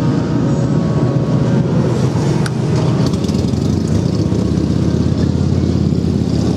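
A 2012 Harley-Davidson Street Glide's 103-cubic-inch fuel-injected V-twin idling steadily through Vance & Hines slip-on mufflers.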